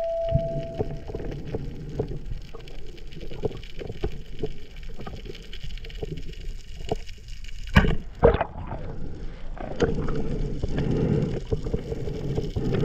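Rubber-band speargun fired underwater: a sharp crack a little before eight seconds in, followed about half a second later by a second sharp knock. Around it runs a steady underwater rush with faint crackling, and a steady tone that stops about a second in.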